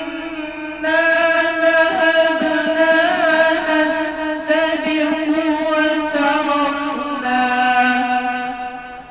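A male reciter chanting the Quran in melodic tilawat style, holding long notes with wavering ornaments. The pitch steps down about seven seconds in, and the phrase dies away near the end.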